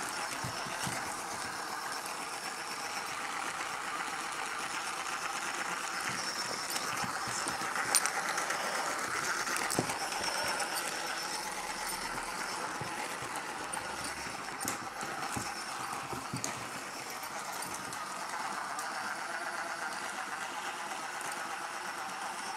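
A knobbly plastic wobble ball dog toy making its giggling noise as a Boxer puppy rolls and mouths it. A few sharp knocks of the ball stand out, the loudest about eight seconds in.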